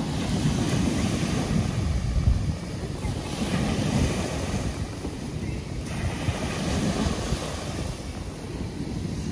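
Ocean surf washing up a sandy beach, with wind rumbling on the microphone; one wave's wash swells louder around the middle.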